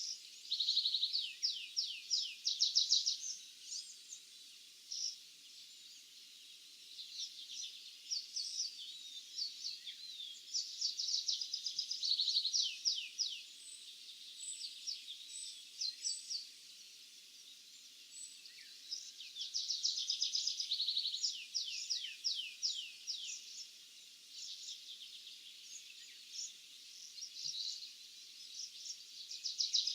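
Several small songbirds singing, their high trilled phrases overlapping and coming in bouts a few seconds long with short lulls between, over a faint steady low hum.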